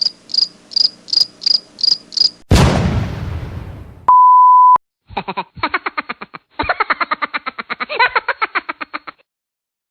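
Cricket-like chirping about three times a second, cut off by a loud crash that dies away over a second and a half. Then a short steady beep, and a fast rattling buzz that stops about a second before the end.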